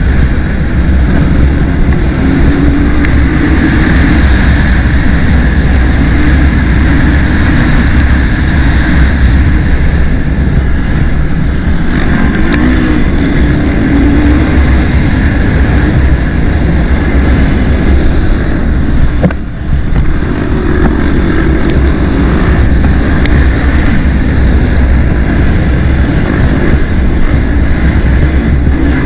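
Racing quad's engine running hard under throttle, its pitch rising and falling with the revs, with a brief drop in level about two-thirds of the way through.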